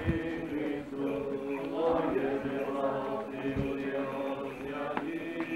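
A group of voices singing a slow Byzantine-rite liturgical chant.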